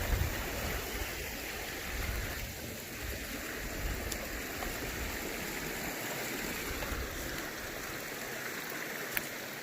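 Creek water rushing steadily over rocks, with low rumbling on the microphone and a sharp click near the end.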